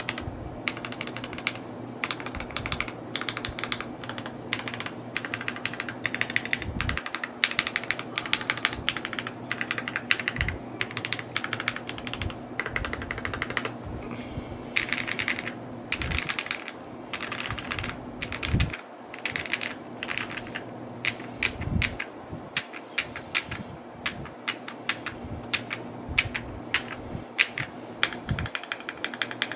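Continuous fast typing on an Evo80 mechanical keyboard: a dense stream of key clicks with an occasional deeper thock from a larger key, over a faint steady low hum.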